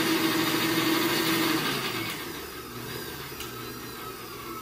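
Electric stand mixer running, beating eggs and sugar in its steel bowl with a steady motor hum; about two seconds in the hum drops lower in pitch and gets quieter.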